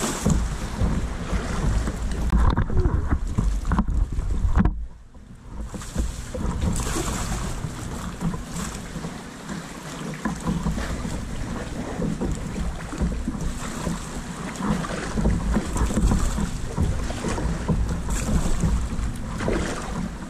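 Wind buffeting the microphone in gusts, over water sloshing around a sea kayak. The wind drops briefly about five seconds in.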